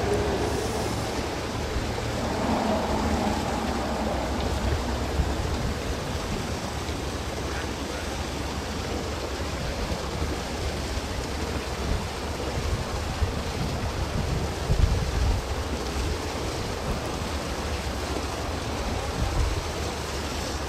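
Wind buffeting the microphone: a steady rushing hiss with irregular low rumbling gusts, strongest about three-quarters of the way through.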